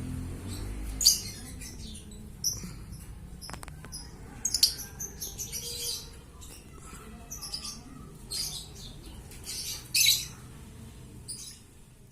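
Lovebirds giving short, sharp, high-pitched chirps and squawks at irregular intervals, about one every second or so, the loudest near the end.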